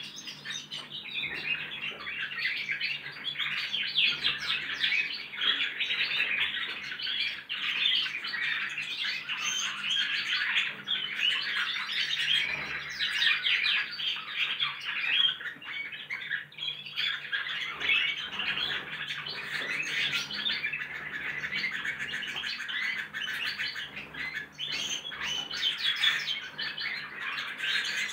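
Several young goldfinches rehearsing their song together: a continuous, dense chatter of overlapping twitters and chirps. It is the rambling practice song of juvenile birds still learning, some of them already picking up canary-style phrases.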